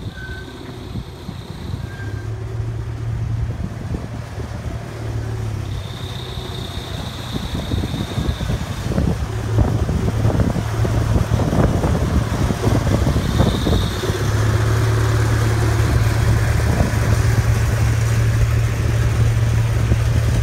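Miniature park train's engine running with a steady low hum that grows louder as the locomotive and its open passenger cars roll past close by. A run of clicks and rattles sounds as the locomotive passes, about ten seconds in.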